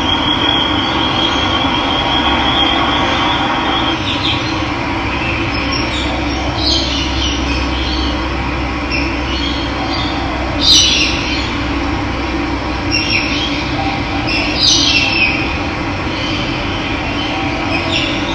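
Running water rushing steadily, with birds calling now and then, loudest about ten and a half seconds in. A thin, high steady tone stops about four seconds in.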